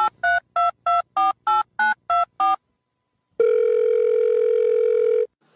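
Telephone touch-tone dialing: nine quick two-note beeps, about four a second, then after a short pause one steady telephone tone lasting about two seconds.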